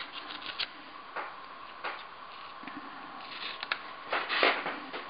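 Faint ticks and light scratching as insect pins are handled and pushed into a foam pinning board around a beetle specimen's legs, with a short louder rustle about four seconds in.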